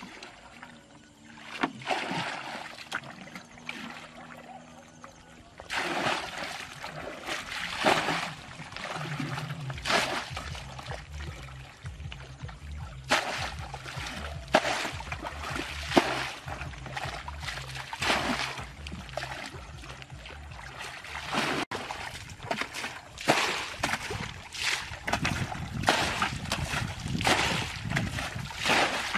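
Muddy water being scooped up and thrown out with a plastic bucket to bail a shallow stream channel dry: repeated sloshing splashes, one every couple of seconds, at an uneven pace.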